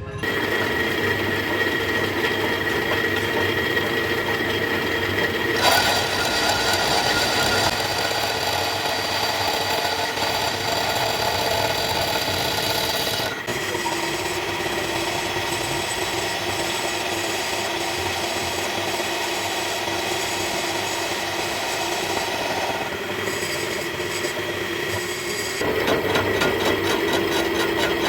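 Lathe boring out the hub of a 22 HP Chinese diesel engine's flywheel, the cutting tool scraping steadily through the metal with a ringing, many-toned screech that changes pitch abruptly a few times. The bore is being enlarged to take a tight-fitting new sleeve in place of the worn keyway seat.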